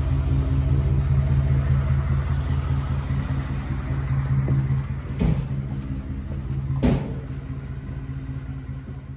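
A vehicle engine idling with a steady low rumble, fading away over the last few seconds. Two thuds sound about five and seven seconds in.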